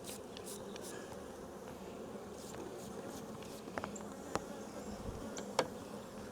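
Honey bees buzzing steadily around an opened hive that is being worked, with a few short sharp clicks in the second half.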